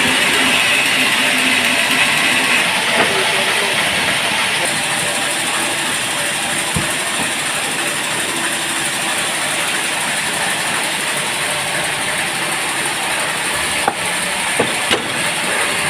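Sawmill band saw machinery running steadily, with a few sharp knocks near the end.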